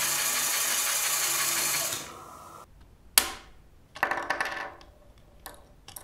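Lego Technic gear train: a steady whir from the driving motor for about two seconds, which then stops. Then a sharp plastic snap, a burst of clicking and grinding from the plastic gears and axles as the input axle is forced round by hand, and a few smaller clicks near the end. The gear train is being strained until parts give: it leaves axles bent and an 8-tooth gear broken.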